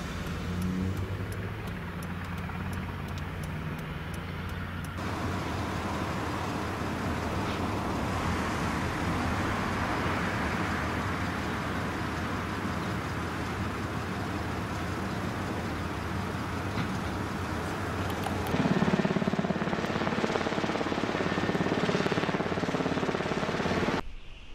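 Outdoor street ambience with road vehicles running and passing, over a steady low engine hum. The background changes abruptly about five seconds in and again near the end, then cuts out suddenly.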